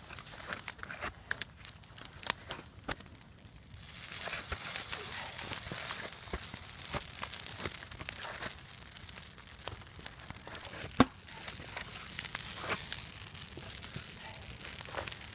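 Campfire of dry sticks and green spruce boughs crackling and popping in irregular snaps, with a steadier high hiss joining about four seconds in and one loud pop a little past the middle.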